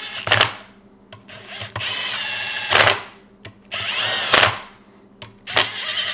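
Cordless drill with a 12 mm socket spinning fasteners onto a Briggs & Stratton Vanguard V-twin's cylinder in four short runs, each a motor whine that ends in a brief loud burst. The fasteners are being run down only to start the threads, not to tighten them.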